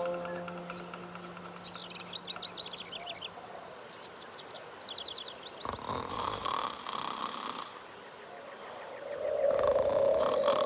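Small birds singing short, fast, falling trills, repeated several times over a soft background. A brief rushing noise comes about six seconds in.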